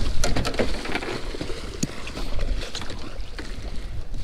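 Wind rumbling on the microphone, with scattered knocks and clatter of gear being handled on the deck of a fishing boat, most of them in the first second, as the landing net is picked up.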